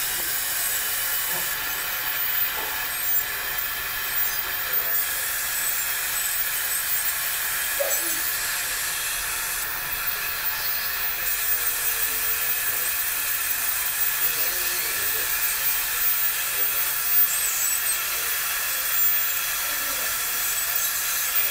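Dental instruments running in a patient's mouth: a steady hiss of air and suction, with a faint high whine over it.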